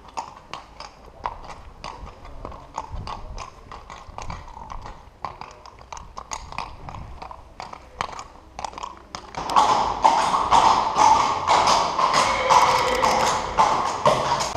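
Lusitano horse's hooves clip-clopping on cobblestones in a steady rhythm of sharp strikes. About nine and a half seconds in, the sound suddenly gets louder and busier, with a steady din under the hoofbeats.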